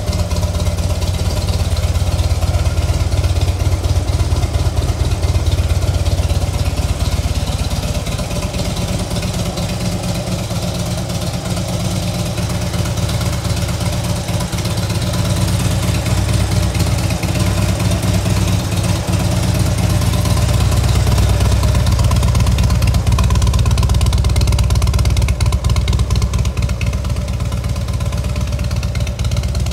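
Harley-Davidson FXDF Fat Bob's 1584 cc V-twin engine idling steadily through aftermarket Screaming Eagle exhausts, a loud, low rumble.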